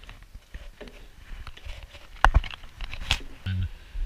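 Scattered clicks and knocks, the loudest two sharp knocks about two and three seconds in, followed by a short low-pitched tone near the end.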